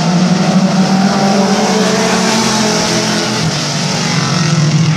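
A pack of stock cars racing together, several engines running loud and steady. The sound dips slightly about three and a half seconds in and builds again near the end.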